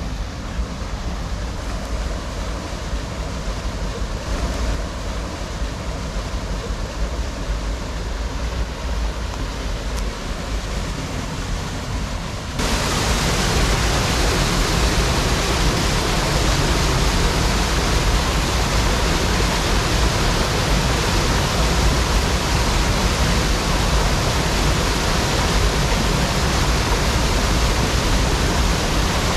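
Steady rushing noise with no distinct tones or strokes; about twelve seconds in it jumps suddenly louder and brighter, then holds steady.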